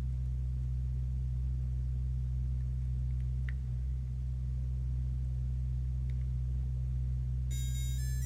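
Steady low hum with a couple of faint handling clicks. Near the end, a sound-making capsule toy starts playing an electronic beeping melody of high, stepping tones.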